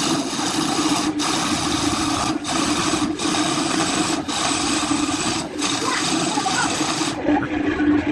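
Wood lathe running with a steady motor hum while a tool works the spinning wood in long hissing passes. The passes break off briefly every one to two seconds, and the contact stops about seven seconds in.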